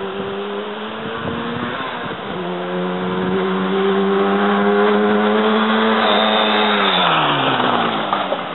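A 1975 Yamaha RD350's air-cooled two-stroke parallel-twin engine runs at a steady pitch as the motorcycle rides toward the camera. It grows louder from about two seconds in, then drops in pitch and level near the end as the bike passes and moves away.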